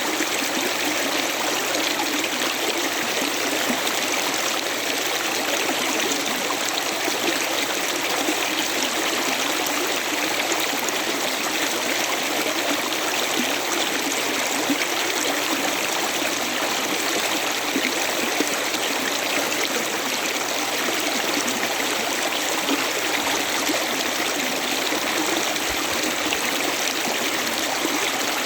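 A river flowing steadily over stones, a continuous rushing and trickling of water.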